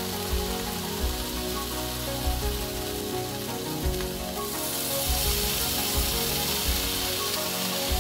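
Bacon sizzling in a hot nonstick frying pan, the hiss growing louder about halfway through as more raw strips are laid in. Background music with a steady bass beat plays throughout.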